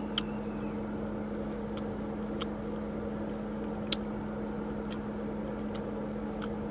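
A steady low electrical or motor hum with a few short, sharp clicks scattered through it.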